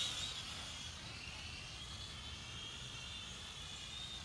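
Propel Maximum X11 quadcopter in flight, its motors and propellers giving a faint, high whine that wavers slightly in pitch.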